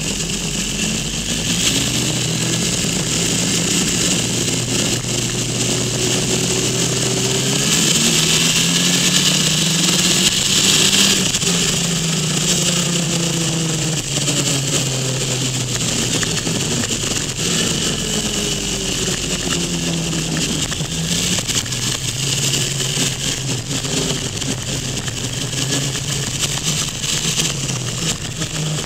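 Motorcycle engine under way, its pitch rising and falling again and again as the rider accelerates and eases off through a run of corners, over a steady rush of wind and road noise.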